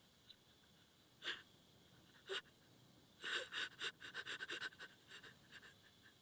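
A young woman crying quietly and close to the microphone: two sharp, breathy sniffs or gasps, then a run of quick, shuddering breaths about three seconds in.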